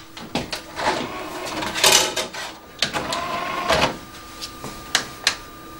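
Plastic clicks and clatter of a CD being loaded into a home CD player: the jewel case and disc tray handled and the player's buttons pressed, a string of sharp clicks with a couple of short rattling stretches.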